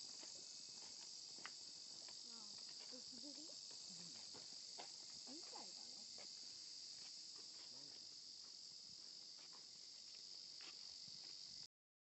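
A steady, high-pitched chorus of insects in summer forest, cutting off suddenly just before the end.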